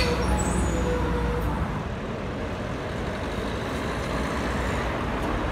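A city tram passing close by, its wheels and running gear rumbling with a high steady whine that fades out about a second and a half in. After that comes a steady rumble of road traffic.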